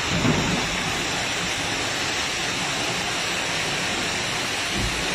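Steady rushing of muddy floodwater backing up out of the toilet and spreading across the bathroom floor.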